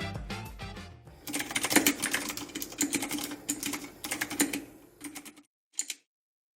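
Fast typing on a full-aluminium mechanical keyboard, a dense run of clicky keystrokes for about four seconds, then two single key presses near the end. Background music fades out in the first second.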